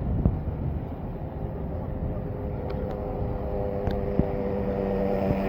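Bus engine running nearby, a steady rumble with a hum that comes in about two seconds in and grows slowly louder.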